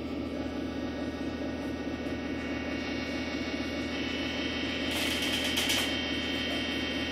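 Electric organ holding a sustained chord with a fast pulsing tremolo. A brighter shimmer swells briefly about five seconds in.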